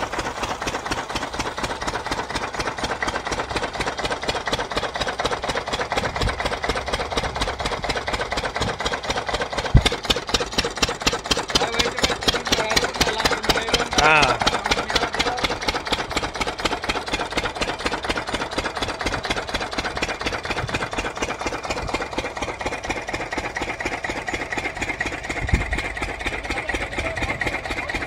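Field Marshal single-cylinder diesel engine running steadily with a rapid, even beat, driving a belt-driven centrifugal water pump. A few louder single knocks stand out now and then.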